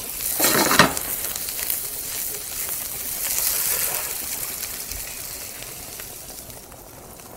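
Chicken pieces sizzling in butter with garlic and parsley in a hot skillet as the pan is tossed. It is a steady hiss that swells twice and fades toward the end.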